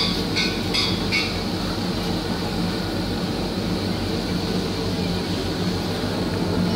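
Steady hum and bubbling from the aeration of a fish holding tank, with a few brief sharp sounds in the first second or so.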